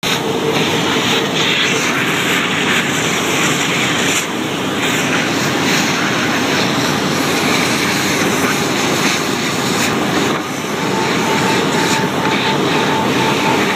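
Vacuum cleaner running with a loud, steady roar that dips briefly twice. A faint steady whine joins it about ten seconds in.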